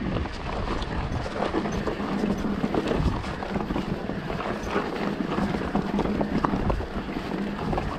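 Mountain bike riding a rough trail: a steady rush of tyres on dirt and stones, with many small irregular knocks and rattles from the bike over the rough ground.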